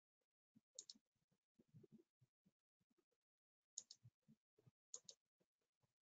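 Near silence broken by a few faint computer mouse clicks, mostly in quick pairs, about a second in and again near four and five seconds.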